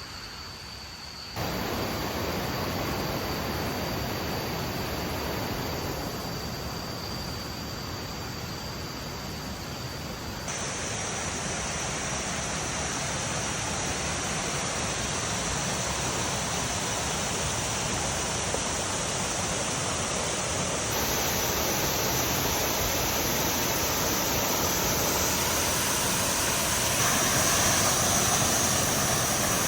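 Waterfall: rushing water pouring over rock, a steady full hiss. It jumps in level and tone suddenly about a second and a half in, again about ten seconds in and about twenty seconds in, and is loudest near the end.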